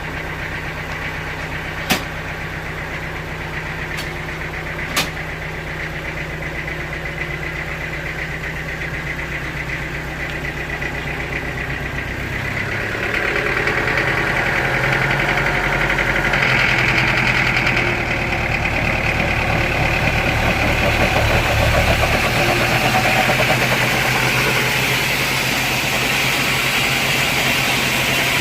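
Sawmill machinery running with a steady engine hum, with two sharp knocks a few seconds apart near the start. About twelve seconds in it grows louder, with a strong hiss over the hum.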